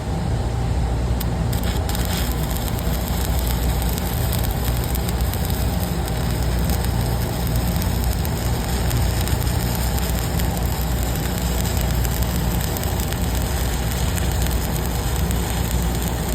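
Stick (shielded metal arc) welding arc running a fillet weld, a steady crackling and sputtering, over a steady low hum.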